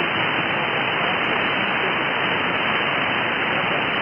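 Steady static hiss from a shortwave receiver in upper sideband, with no signal on the frequency, cut off sharply above about 3 kHz by the receiver's filter.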